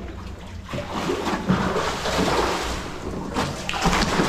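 A hooked snook thrashing at the surface beside a small boat as it is hauled in on a hand line, splashing water, with the sharpest splashes near the end.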